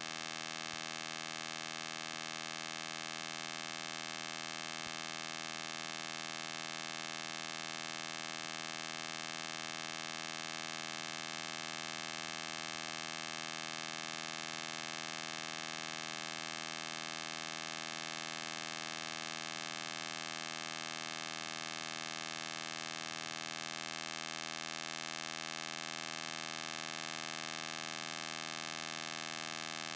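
A steady electrical hum-like buzz with many overtones that does not change.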